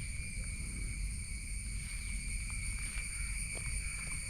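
Steady high-pitched insect chorus, several constant tones at once, over a low rumble, with a few faint short chirps.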